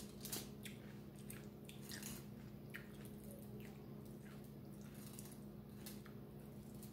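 Faint chewing and wet mouth smacks of a person eating, with scattered small clicks, over a steady low hum.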